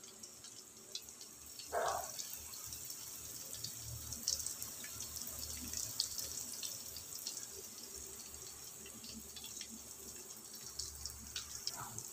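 Vegetable soup heating in an aluminium pot on a gas stove burner: faint bubbling and small ticks of the liquid, with one brief louder sound about two seconds in.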